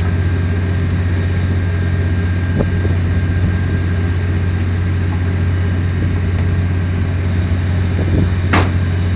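An engine running steadily with a deep, even hum, and a short sharp click near the end.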